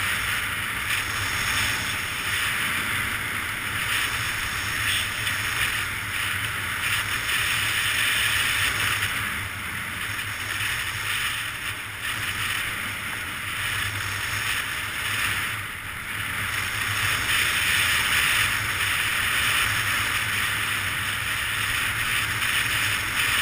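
Skis sliding over groomed snow on a steady downhill run: a continuous hiss that swells and eases slightly, with wind rushing over the camera's microphone.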